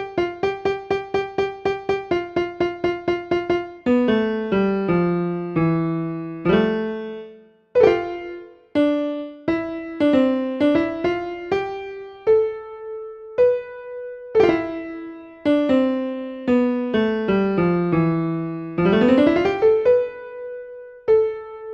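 Solo piano or electric-piano music. It opens with a fast run of repeated notes at about four to five a second, moves into a slower melody of struck, fading notes, and has a quick rising run of notes near the end.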